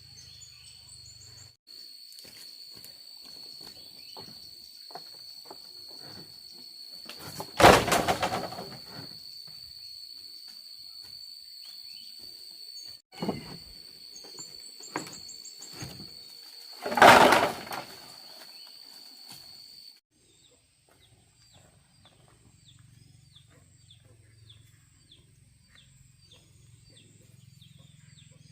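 Pieces of wood being thrown down onto a pile by hand: two loud clattering crashes about nine seconds apart, with lighter knocks in between. A steady high insect whine runs behind them and stops suddenly, after which a bird calls in a quick series of chirps.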